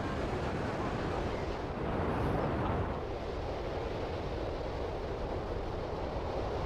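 Ocean surf washing on the shore, a steady rush that swells briefly about two seconds in.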